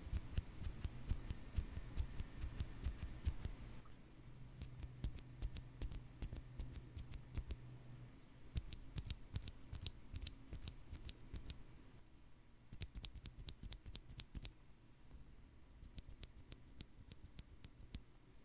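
Typing on a mechanical keyboard fitted with Gateron Cap linear switches, factory-lubed switches with POM stems: quick runs of deep, clacky keystrokes with short pauses between the runs.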